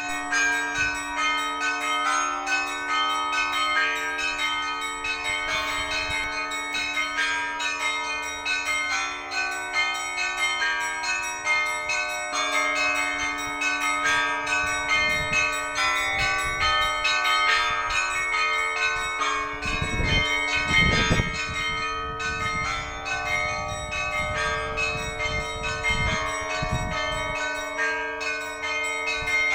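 Church bells rung in the Russian Orthodox manner: many small bells struck in quick, continuous patterns over the long, sustained hum of larger bells. A few low rumbles come through about twenty seconds in.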